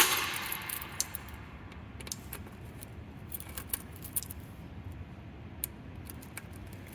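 A sharp click at the start, then a bunch of keys jangling and clicking on and off, the keys used to reset the fire alarm pull stations.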